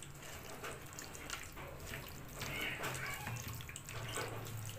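Wet squelching and squishing of a bare hand kneading chicken pieces through a thick cream-and-yogurt marinade in a plastic bowl, in irregular short squishes, with a low steady hum underneath.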